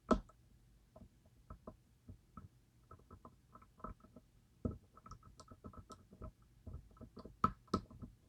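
Irregular small metallic clicks and taps of a lock pick probing the sharkfin pins of a DOM IX Twinstar lock, several a second, with a louder click right at the start and another near the end.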